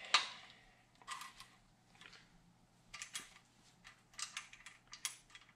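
Faint, sharp metallic clicks, a few each second, from a ratchet wrench with a torque-angle gauge turning a GM LS3 crankshaft main-cap bolt to 51 degrees.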